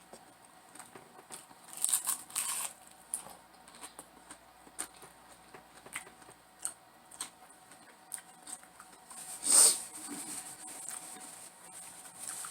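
Close-up eating sounds of battered fried chicken wings: soft chewing and wet mouth clicks, with a louder noisy crunch or rustle about two seconds in and the loudest short burst near the end.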